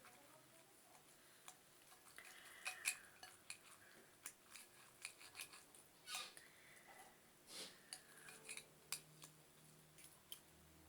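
Faint, irregular small clicks and scrapes of a boiled egg being picked apart to separate the white from the yolk.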